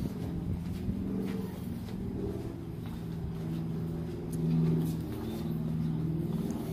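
A motor running steadily with a low hum, swelling briefly about four and a half seconds in.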